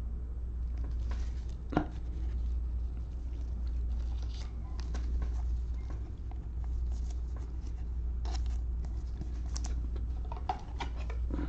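Panini Optic football cards being flipped through and laid onto a stack by gloved hands: soft sliding and small clicks and taps, with a sharper tap about two seconds in and a flurry near the end. A steady low hum runs underneath.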